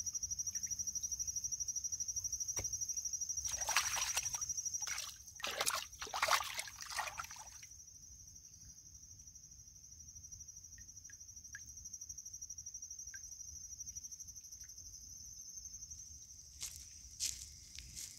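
Water splashing and sloshing for a few seconds, starting about three and a half seconds in, over a steady, fast-pulsing high trill of insects.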